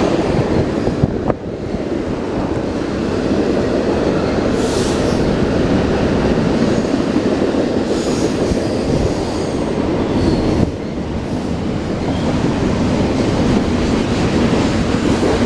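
Long, heavy intermodal freight train rolling slowly past: a steady rumble of steel wheels on rail, with faint high-pitched wheel squeal in the middle.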